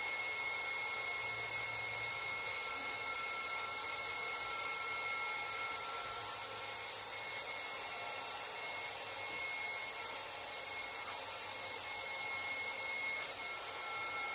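Tuxing 4500 psi PCP air compressor unit running with a steady, even whir and a thin high whine.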